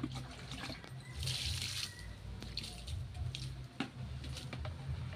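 Water splashing and dripping, with a short splash about a second in and scattered light clicks, as water is scooped from a bucket over a fish being cleaned.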